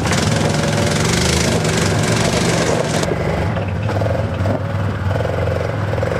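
ATV engine running under load as the quad climbs over rocks, its pitch shifting with the throttle; it is noisier for the first three seconds, then eases off.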